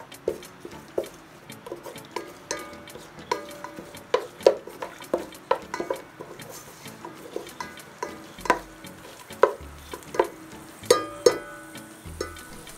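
Wooden spoon stirring in a rice cooker's metal pot, knocking against the bottom and sides many times at an uneven pace, each knock ringing briefly, over a faint sizzle of curry leaves and rampe frying in butter and coconut oil.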